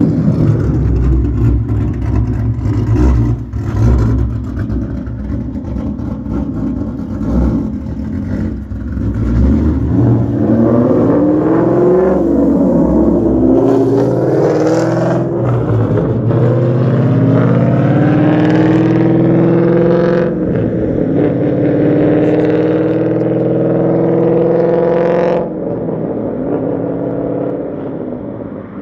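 Ford Mustang GT's Coyote 5.0 V8 running through long-tube headers, an X and H pipe and no mufflers or resonators, under load: a deep rumble, then the note rising as it pulls up through the revs, then held at steady high revs for several seconds before backing off sharply.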